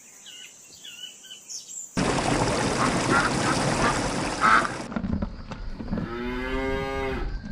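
A run of animal calls from several cut-together clips: faint high chirps, then a noisy stretch with a few short calls, then one long, slightly falling call near the end.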